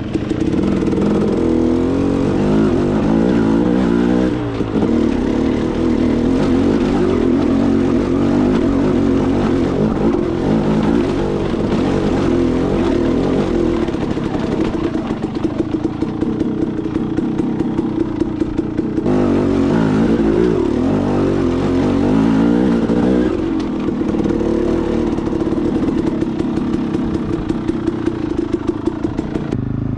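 Dirt bike engine running under way, its pitch rising and falling with the throttle, with an abrupt change in the sound about two-thirds of the way through.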